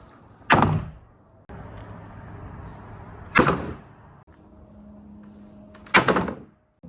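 Marbles rolling along a marble run track, with three loud clattering impacts about two and a half seconds apart as they drop and strike the course.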